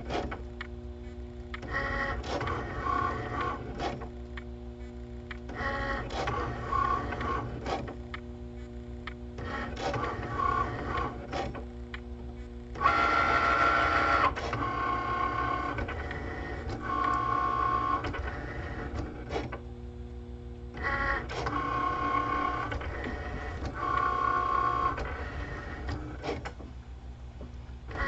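Cricut electronic cutting machine cutting printed sticker sheets: its motors whine in short runs as the blade carriage and rollers move the mat back and forth, the pitch changing from run to run. There is a louder stretch about halfway through.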